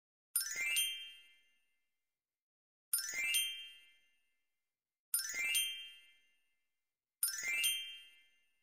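A bright chime sound effect rings four times, about two seconds apart, each ding dying away over a second or so. Each chime marks a new capital L being written out on the tracing lines.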